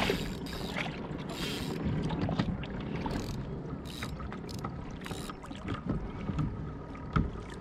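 Sea water sloshing and lapping against a kayak's hull, with wind on the microphone and a few small knocks.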